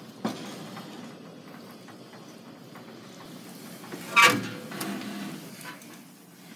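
Cooking pot being handled at a wood stove oven: a light knock just after the start and a loud metal clank about four seconds in, over a low steady hiss.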